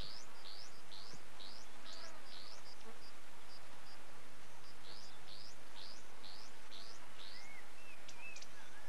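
Bird calling a short rising chirp over and over, about two a second with a brief lull midway, with a few lower whistled notes, over steady tape hiss.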